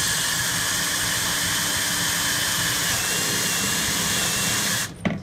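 Power drill running steadily as it bores a hole through the plastic top of a car dashboard storage compartment; it stops suddenly near the end, followed by a few sharp clicks.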